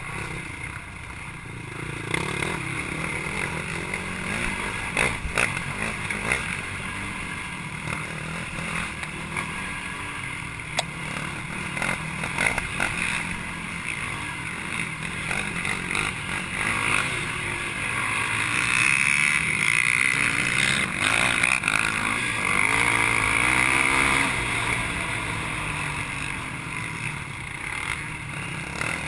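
Race ATV's engine heard on board, revving up and backing off through a wooded dirt trail, with a few sharp knocks from the ride. It runs harder and louder from about 18 to 25 seconds in.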